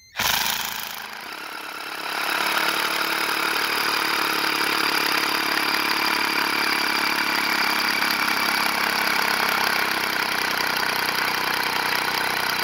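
Power drill turning a 1-inch auger bit with a pilot drill as it bores into wood. It starts suddenly, eases off briefly, then runs at a steady whine under load.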